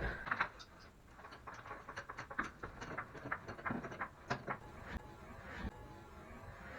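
Faint irregular clicks and light knocks, a few a second, from about a second in until near six seconds.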